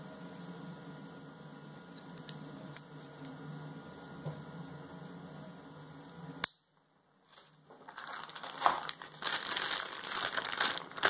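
Packaging crinkling and rustling as an accessory of the action-cam kit is unwrapped, starting about eight seconds in. Before it a low steady hum with a few faint clicks, then a sharp click and a second of silence.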